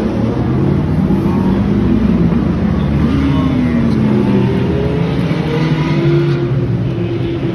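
Several Ferrari cars driving past in a slow parade, a mix of engine notes whose pitch glides down and back up as each car passes.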